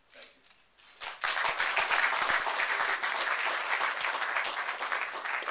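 Audience applauding, starting about a second in and continuing as steady, dense clapping.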